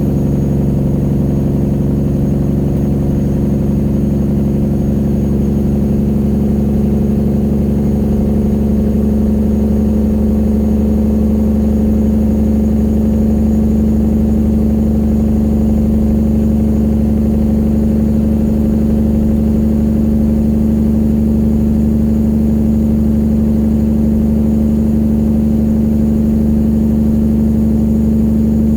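Straight-piped diesel engine of a 1999 Peterbilt 379 truck running under steady load, a loud even drone with one lower tone dropping out about nine seconds in.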